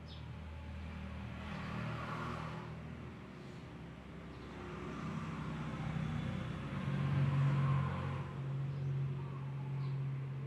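A low, steady motor hum that steps up in pitch about five seconds in, with two soft swells of hissing throat breath, ujjayi breathing, about two seconds in and again around seven seconds.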